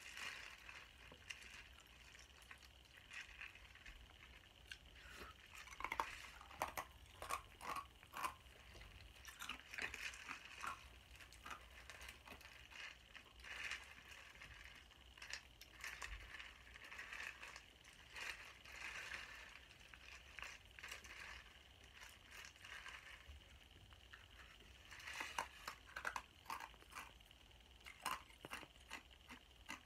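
Plastic spoon scraping and clicking in a foam cup of chicken soup with crackers, mixed with quiet eating sounds: a scatter of small clicks and rustles, busiest from about six to eleven seconds in and again near the end.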